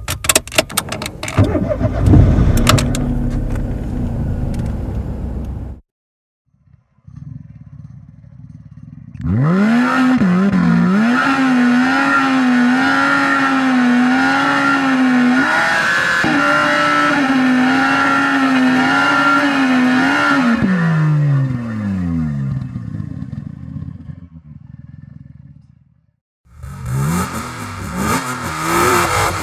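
A run of separate car engine recordings. First an engine with sharp clicking and clatter for about six seconds. After a brief gap a low engine rumble comes in, and the revs rise at about nine seconds and are held high with a wavering pitch for about eleven seconds before dropping away. Near the end another engine revs in short rises.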